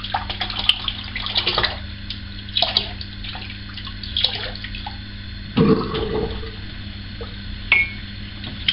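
Tap running into a sink while a silvertip badger shaving brush is rinsed out under it, with irregular splashing. A louder knock comes about halfway through.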